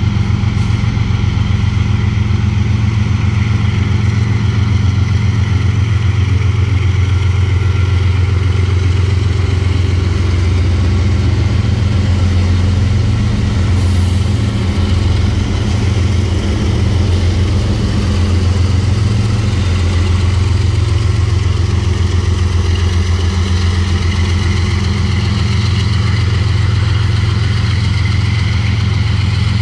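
A CSX freight train passing close: its diesel locomotives' engines run with a loud, steady low drone as the lead units go by, then hopper cars roll past on the rails.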